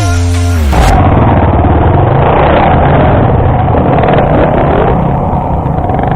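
Dirt bike engine running steadily while riding off-road, heard as a rough, muffled rumble. Music cuts off abruptly just under a second in.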